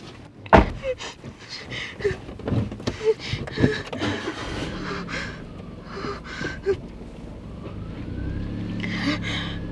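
A car door slams shut with one sharp bang, followed by small knocks and clicks and a person breathing hard. Toward the end a car engine comes in with a low, steady running hum.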